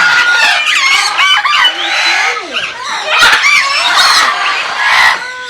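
A flock of parakeets chattering and squawking, many short chirps and screeches overlapping.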